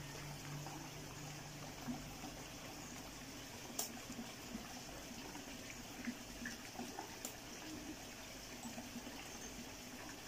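Faint steady trickle of water running through a backyard aquaponics system. Two sharp snips of garden scissors cutting capsicum sound about 4 and 7 seconds in.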